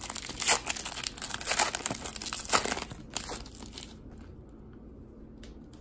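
Trading-card pack wrapper torn open and crinkled by hand: a dense crackling and tearing for about three and a half seconds, then a few faint ticks.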